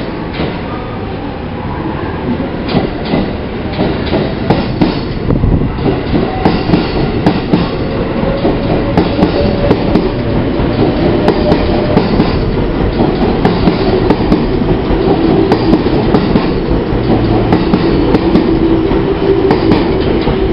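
JR West 207 series electric multiple unit pulling out of a station and passing close by, its wheels clattering over rail joints and the traction motors whining as it gathers speed, louder as the cars go past.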